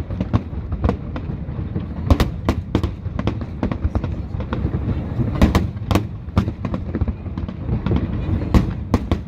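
Fireworks display: a rapid, irregular string of sharp bangs and crackles over a continuous low rumble, with the loudest bursts about two seconds in and again near the middle and the end.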